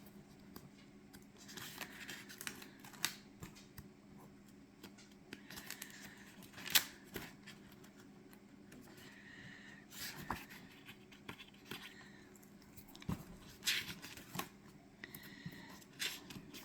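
Faint rustling and light clicks of paper pages being handled and turned in a journal, with a few sharper ticks here and there.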